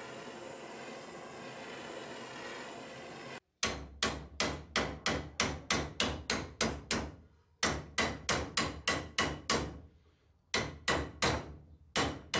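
Butane blowtorch hissing steadily on a dagger blade for about three seconds, then hammer blows on the heated steel blade held on a bench vise: quick runs of sharp, ringing strikes, about four a second, broken by two short pauses.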